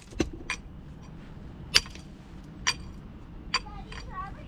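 Hammer striking concrete block: five sharp, ringing blows at uneven spacing, each landing with a metallic clink. A faint voice comes in near the end.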